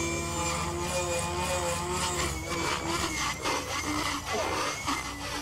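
Align T-Rex 600 RC helicopter's motor and main rotor giving a steady high whine, with a pulsing blade chop that comes and goes and a wavering pitch as it manoeuvres and climbs away.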